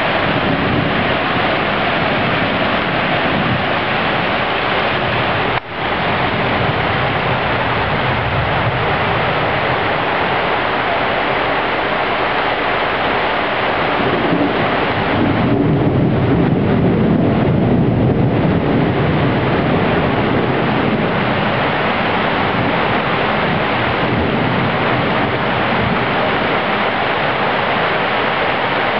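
Steady rain falling on trees, cars and pavement, a dense even hiss. For a few seconds past the middle a low rumble swells underneath it.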